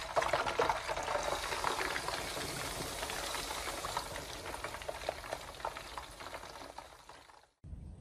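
Hot oil sizzling and crackling with many small pops as a batter-coated crocodile head is lowered into it to fry. Loudest in the first couple of seconds, easing off gradually, then cut off suddenly near the end.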